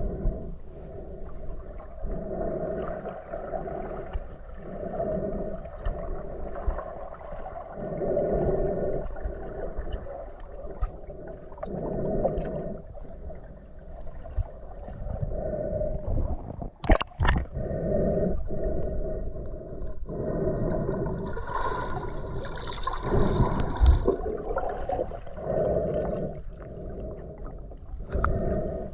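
Muffled sound from a GoPro underwater while snorkeling: water gurgling and sloshing in swells that come every second or two, with a sharp knock about two-thirds of the way through.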